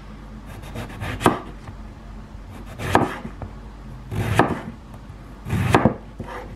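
Kitchen knife slicing a stripe-peeled aubergine into thick rounds on a wooden cutting board. There are four cuts about a second and a half apart, each ending in a knock of the blade on the board.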